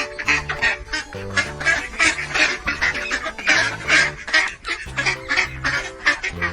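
Ducks quacking over and over in quick runs, laid over background music with a steady bass line.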